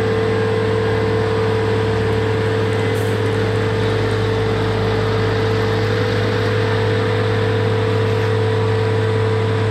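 Terex mobile crane's diesel engine running steadily: a constant low drone with a steady higher hum above it.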